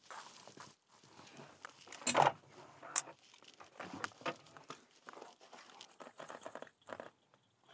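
Rifles and gear being handled: rustling of clothing and straps with scattered sharp clicks. The loudest is a bit over two seconds in, and a crisp click follows about a second later.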